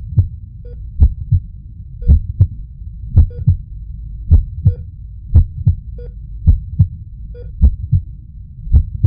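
A heartbeat: pairs of low thumps, lub-dub, repeating evenly about once a second over a steady low rumble.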